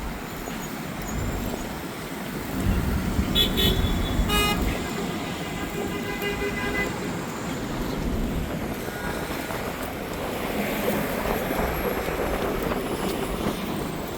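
City street traffic: vehicles passing with a steady rumble, and car horns tooting briefly a couple of times about three to four seconds in.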